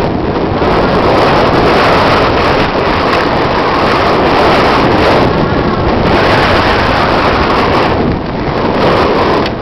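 Heavy wind buffeting a helmet camera's microphone on a fast downhill mountain bike run, mixed with the rumble and rattle of the bike rolling over a dry dirt trail.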